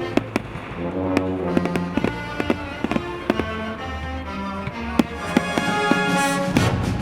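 Fireworks bursting in a string of sharp bangs over brass-led music. The bangs come thicker, with a heavy low rumble, near the end.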